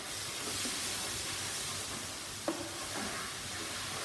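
Vegan bacon, mushrooms and onions sizzling steadily in a hot electric skillet as cashew cream goes in and is stirred with a wooden spoon, with a single sharp tap about two and a half seconds in.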